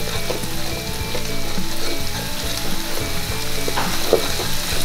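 Ground garlic and candlenut paste sizzling in oil in an aluminium wok over a low flame, while a metal spatula stirs it and scrapes against the wok a few times.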